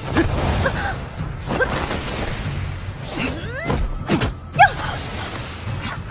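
Animated martial-arts fight sound effects: four or five quick whooshes and hits of blows, with short vocal efforts, over background music.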